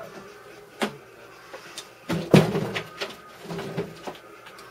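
Knocks and thuds from boots handled and set down on wooden box tops. There is a sharp knock just under a second in, a loud cluster of thuds a little over two seconds in, and a few lighter knocks near the end.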